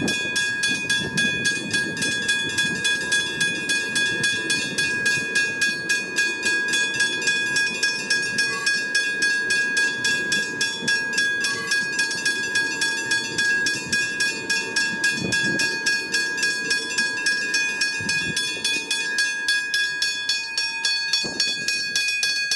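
Westinghouse hybrid level-crossing bell ringing with rapid, even strokes and a bright ring, cutting off suddenly near the end. Beneath it is the low rumble of a passing train.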